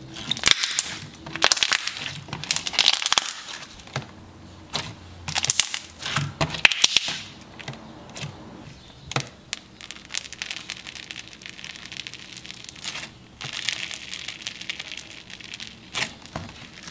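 Hands squishing and folding thick, glossy slime, making crackling bubble pops in uneven clusters. Near the end comes the crunch of micro floam, a slime packed with foam beads.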